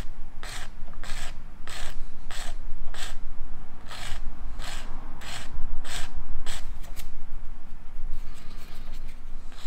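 Hand-sanding a small resin model part: regular back-and-forth scraping strokes, about two a second, that ease off about seven seconds in and start again near the end.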